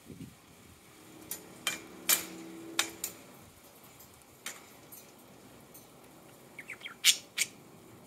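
Budgerigars giving scattered short, sharp squawks and chirps, with a quick run of small chirps and two loud squawks near the end.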